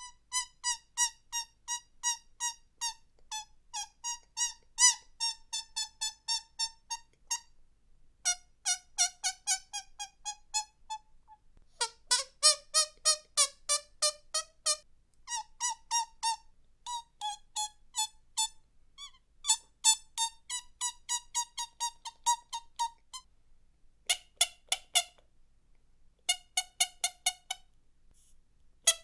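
A bird calling in a fast series of short, sharp, pitched notes, about three to four a second. The calls come in runs of a few seconds with brief pauses between them.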